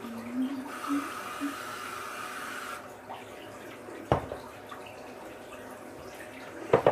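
Bathroom tap running into the sink, then stopping about three seconds in; a single knock follows a second later, and a few small clicks near the end.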